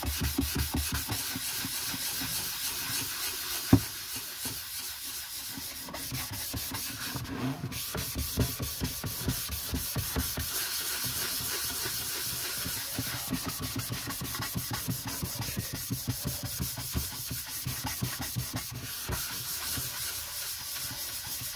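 A sponge rubbing finishing oil into a wooden board with quick back-and-forth strokes, working the oil into the bare beech and the inlaid veneers. There is a single sharp knock about four seconds in.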